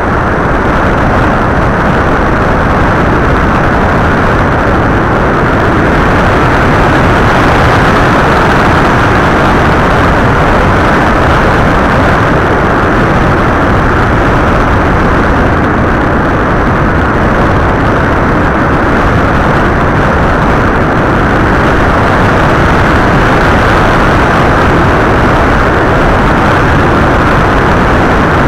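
FPV model aircraft in flight: a loud, steady rushing of wind and propeller noise, with no clear motor pitch.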